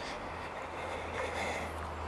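Steady low rumble with a faint hiss: wind and handling noise on a handheld camera's microphone while walking on a forest trail.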